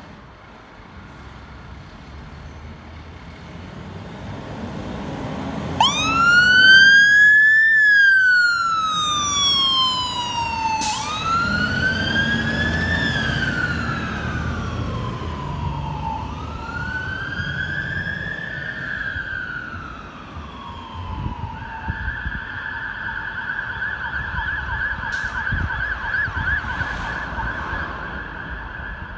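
Fire engine turning out on an emergency call: its engine rumble builds, then about six seconds in the siren starts with a slow rising-and-falling wail that cycles three times, and switches to a fast yelp for the last several seconds.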